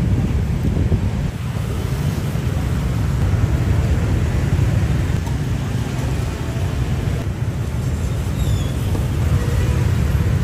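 Steady low rumble of vehicle traffic, with no clear pitch or separate knocks.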